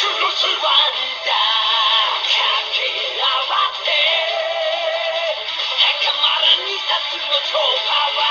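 Bandai DX Haouken Xross Saber toy sword playing a recorded sung music track through its small built-in speaker. It sounds thin, with almost no bass.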